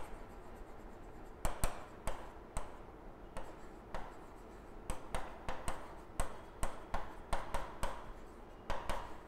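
Marker pen writing on a whiteboard: a faint, irregular run of short squeaks and taps as words are written, starting about a second and a half in.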